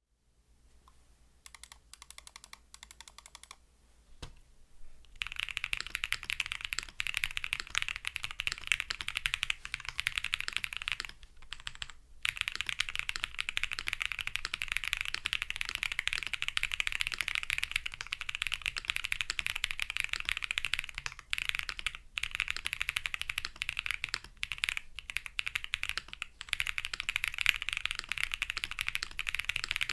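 Typing on a qwertykeys QK60 custom keyboard with a POM plate, gasket mount, Holy Chikies tactile switches lubed with Krytox 205g0, and PBT keycaps. A few separate key presses at first, then fast continuous typing from about five seconds in, broken by a few short pauses.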